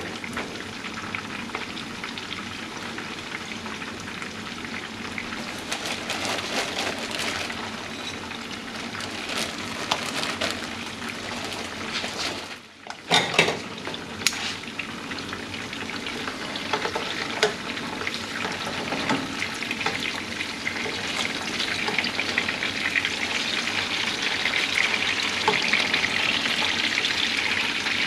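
Pompano fillets frying in hot oil in a pan, a steady crackling sizzle. About halfway through it briefly drops out, then a couple of sharp knocks follow, and the sizzle grows stronger toward the end.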